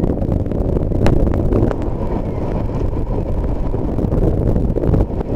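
Steady rushing noise of Horseshoe Falls heard close up from the water, mixed with wind buffeting the microphone.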